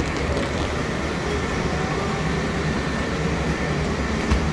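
Steady low rumble of a city bus heard from inside its cabin, with a single sharp knock about four seconds in.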